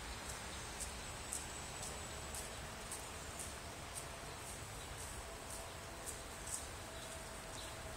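Open-air background noise with faint, very high ticks about twice a second and a faint steady tone from about a third of the way in.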